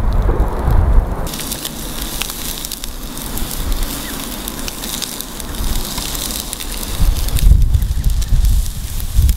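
Charcoal fire crackling and sizzling under a tomahawk steak in a wire grill basket, a fine hiss with scattered sharp pops. A low rumble sits under it for the first second or so and again from about seven seconds in.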